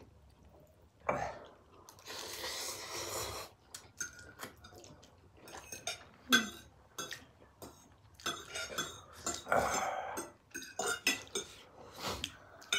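Metal forks clicking and scraping against porcelain bowls, with a few noisy stretches of ramen noodles being slurped.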